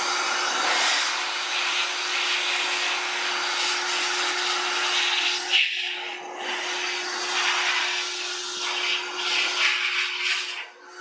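Electric air blower running, blowing dust out of a laptop's cooling fan: a steady motor hum under rushing air, with the airflow dropping briefly about six seconds in and again near the end.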